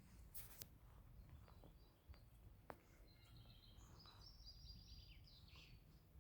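Faint outdoor ambience with a small bird singing a run of quick high chirps from about three seconds in to near the end, over a low steady rumble. A short hiss comes about half a second in and a sharp click near the middle.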